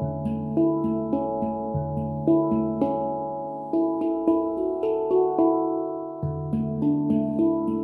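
Handpan played with the fingertips: a flowing run of struck steel notes, a couple a second, each ringing on and overlapping the next, with a low bass note returning every few seconds.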